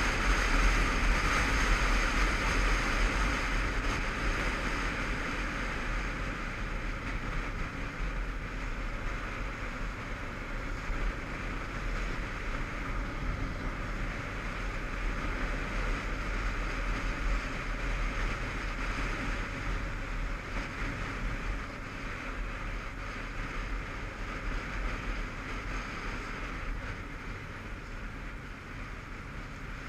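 Motorcycle ridden at road speed, heard from a camera on the bike: wind rushing over the microphone over the engine and tyre noise, growing a little quieter toward the end.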